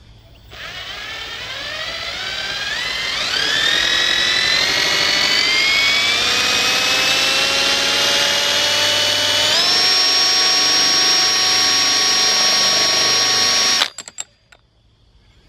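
Cordless drill spinning the shaft of a field-wound DC generator to test its voltage output. The whine climbs steadily in pitch as the drill speeds up, jumps to a steady top speed about two-thirds of the way through, then cuts off suddenly.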